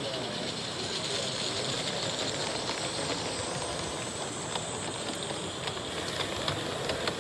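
A 16mm-scale gas-fired live steam model locomotive running past with its coaches, giving a steady hiss, with light clicks of the wheels on the track in the second half.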